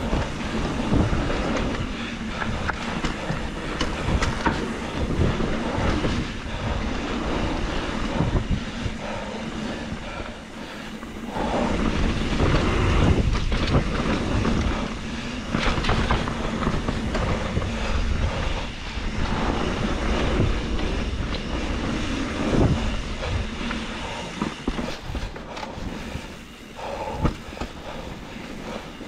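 Trek Slash 7 mountain bike riding a dirt flow trail: a steady rushing noise of the tyres rolling, broken by frequent knocks and rattles of the bike over bumps.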